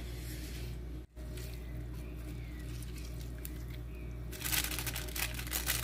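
Low steady hum with faint handling sounds, then from about four seconds in a quick run of crisp rustling and crunching as raw shredded vegetables and sliced onion are handled in a stainless steel bowl.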